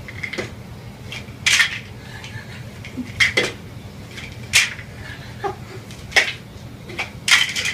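Sharp clinks and clatters of hard objects knocking together, five or so at uneven gaps of one to two seconds.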